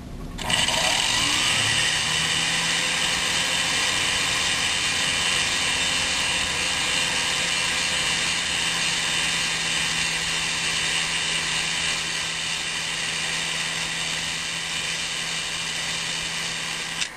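Sewing machine motor driving the bobbin winder, winding a bobbin the improper way. It spins up with a short rising whine about half a second in, runs as a steady high whine, and stops just before the end.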